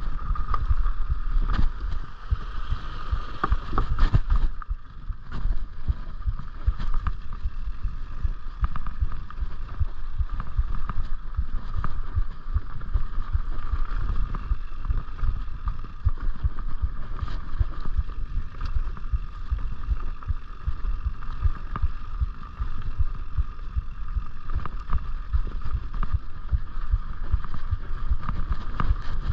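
Mountain bike rolling along rough dirt singletrack: a low rumble of tyres and wind on the microphone, with frequent small rattles and knocks from the bike over bumps and a steady buzz throughout.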